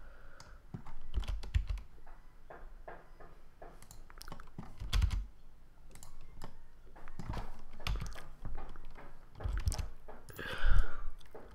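Computer keyboard keys pressed in an irregular run of separate keystrokes, some heavier than others.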